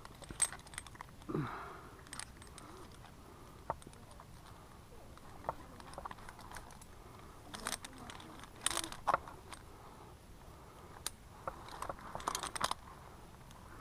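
Metal climbing hardware (carabiners and a rope pulley) clinking, with rope rustling, as hands handle a tree climber's harness rigging: scattered light clicks and clinks.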